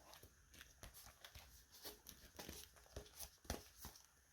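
Faint rustling and light taps of trading cards and plastic album sleeves being handled, with one sharper tap about three and a half seconds in.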